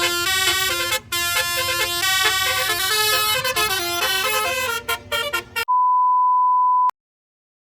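Multi-trumpet 'telolet basuri' bus horn, a 12-trumpet roof-mounted set, playing a melody of several notes sounding together that step up and down. It cuts off abruptly a little over halfway through, followed by a steady high beep held for about a second.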